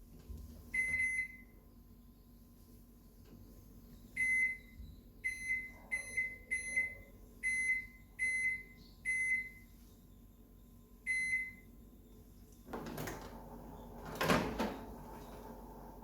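Microwave oven control panel beeping as its buttons are pressed to set a bake: nine short beeps at one high pitch, unevenly spaced. Near the end there is a rustling clatter and a sharp thump.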